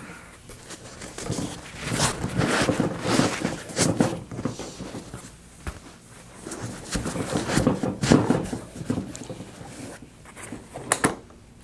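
Thick foam inserts being lifted and pushed into a hard plastic case: soft scuffing and rubbing of foam against the case walls in two stretches, with a few light knocks near the end.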